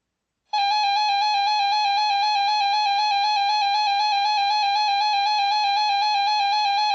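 Emergency alert system attention tone: a loud, steady electronic alarm tone that starts sharply about half a second in and holds at one pitch without a break.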